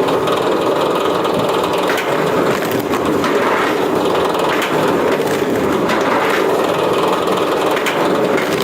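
A powered wood-processing machine running steadily while wood is crushed and splits, with frequent sharp cracks and splintering over the machine's steady noise.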